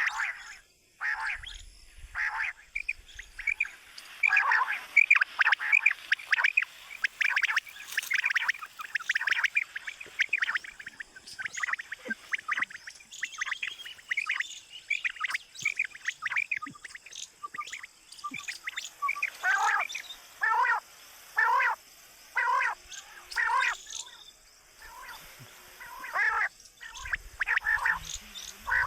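Quail calling over and over with short, sharp calls, many overlapping through the first half, then evenly spaced at about one a second in the second half. It is a quail call recording used to lure wild quail.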